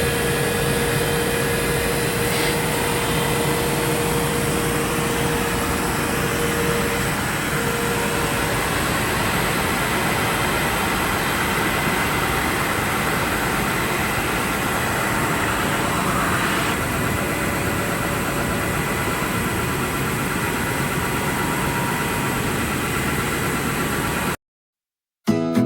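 PET planer-sander machine running steadily, a constant mechanical noise with a held hum for the first several seconds, cutting off abruptly near the end.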